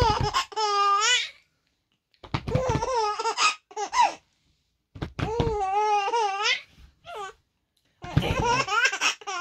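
Baby laughing in about five high-pitched, wavering bursts, with short silent pauses between them.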